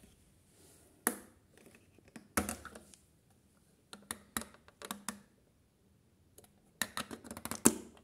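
Plastic detergent drawer of a toy washing machine being pulled open and pushed shut, making sharp clicks and knocks in four short bursts, the loudest near the end.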